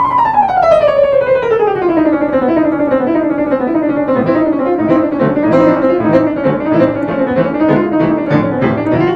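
Yamaha CFX concert grand piano played very fast: a quick falling run of notes over the first couple of seconds, then rapid notes moving back and forth in the middle register, breaking off at the end.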